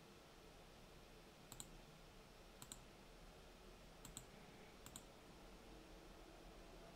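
Four computer mouse clicks, each a quick double tick of button press and release, spread unevenly over a few seconds against faint room hiss.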